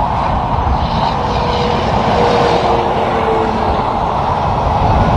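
Highway traffic with a tractor-trailer coming along the near lanes: a steady rush of tyre and diesel engine noise, with a faint whine midway.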